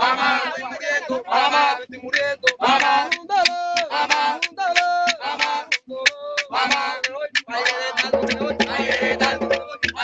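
Men of a son de negros dance group singing a chant together, with short phrases and a few long held notes. A steady, low rhythmic accompaniment comes in about eight seconds in.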